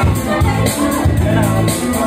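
Live song: a man singing over electronic keyboard accompaniment with a steady beat and sustained bass notes.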